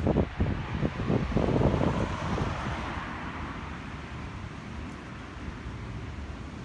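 Outdoor neighbourhood ambience: irregular gusty rumbling and a swelling hiss over the first two or three seconds, easing into a steady background hiss.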